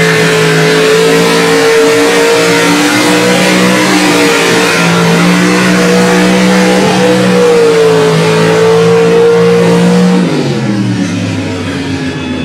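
Lifted square-body pickup mud truck's engine held at high revs under full throttle, its pitch wavering slightly. About ten seconds in the revs drop and it gets quieter as the driver comes off the throttle.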